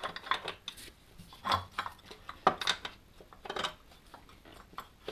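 Metal hand tools, a socket wrench and extension bar, clinking and knocking against the engine as bolts are worked loose: several irregular metallic clanks and taps.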